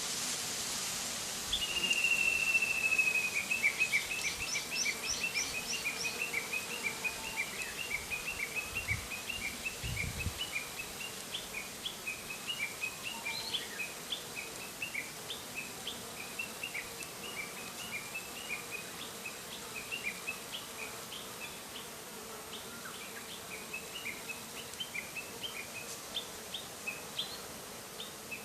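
A songbird gives one long falling whistle, then a steady run of short chirps, two or three a second. Under it is the faint steady hum of Japanese honeybees flying around their hive.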